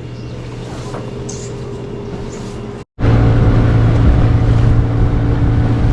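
Boat engine droning steadily at a constant pitch. About three seconds in it cuts out for an instant and comes back much louder and closer.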